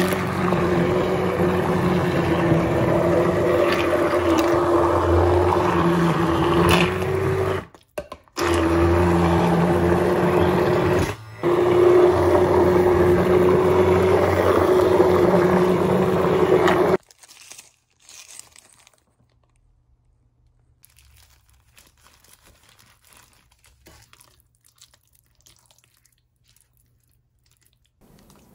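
Hand-held immersion blender running in a thick slow-cooked stew of meat and vegetables, puréeing it. Its motor hum is steady, cuts out briefly twice and stops about two-thirds of the way through. After that come faint scrapes and clicks of a utensil mashing and stirring the mixture in the crock.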